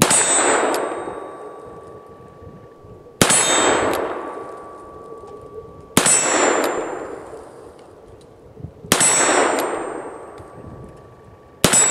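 Five .357 Magnum shots from a Ruger Security Six revolver, about three seconds apart, each hitting a steel silhouette target. Each hit is a sharp crack followed by the plate ringing and slowly fading.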